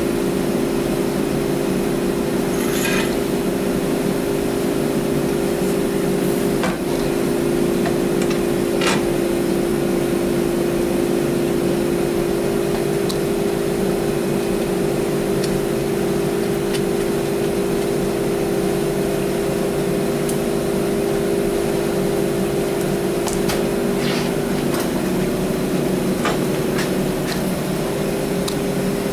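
A steady machine hum, with scattered light metallic clinks and taps of hand tools working on the front steering linkage.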